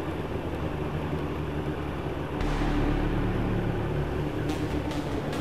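Yamaha YZF 1000cc motorcycle's four-cylinder engine running at a steady cruising pace, with wind and road noise; a deeper, louder rumble comes in about two and a half seconds in.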